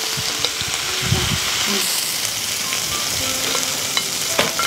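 Food sizzling steadily in a hot pan, with a low knock about a second in and a few small clicks of cooking utensils.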